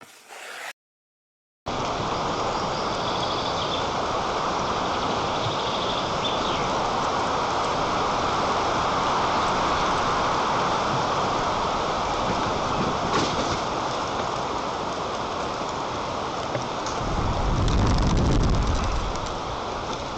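Strong wind rushing past the microphone as a steady hiss, with a heavier low buffeting gust near the end.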